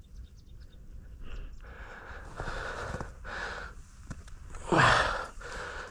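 A person breathing hard while walking through snow, in a series of short, noisy breaths. The loudest is a strong exhale with a low voiced grunt just before the end.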